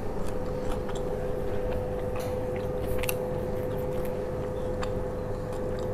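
Eating sounds: chewing of fried tempe gembus close to the microphone, with a few scattered small clicks, over a steady hum.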